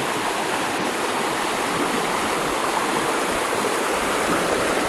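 Steady rushing of fast river water on the Russian River, an even unbroken wash of noise.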